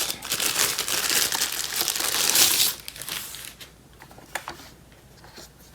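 Plastic packaging crinkling and rustling as a lock part is handled and unwrapped. It is loud for the first two and a half seconds, then dies down to a few faint clicks and handling taps.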